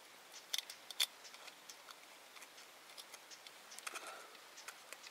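Light clicks and taps of eating utensils handling food on a dish, two sharper ones about half a second and a second in, then scattered small ticks.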